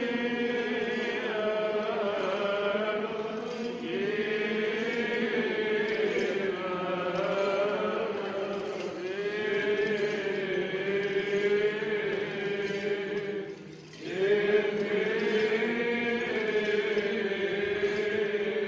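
Greek Orthodox Byzantine chant: voices singing a slow hymn in long phrases, drawn out over several notes, with a short pause to breathe just before the last phrase.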